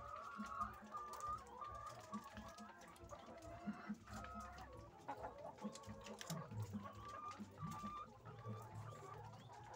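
A flock of laying hens clucking and calling, with many short calls overlapping.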